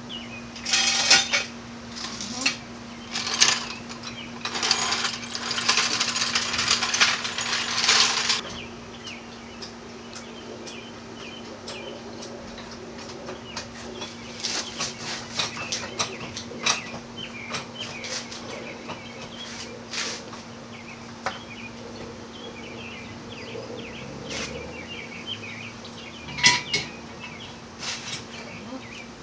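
Hand work under a Subaru Impreza wagon while its fuel tank is worked loose: bursts of scraping and rattling in the first eight seconds, then scattered metal clanks and knocks, with one loud knock near the end, over a steady hum.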